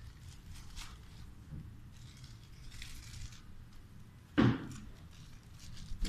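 Clear plastic packaging crinkling in short scratchy bursts as an Alexandrine parrot pokes at it, with one loud thump about four and a half seconds in.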